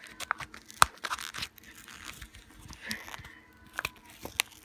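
Packaging being torn and peeled off by hand, with irregular sharp snaps and crinkling rustles as the material rips.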